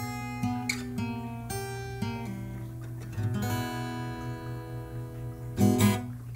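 Background music: picked acoustic guitar notes, with two loud strummed chords near the end.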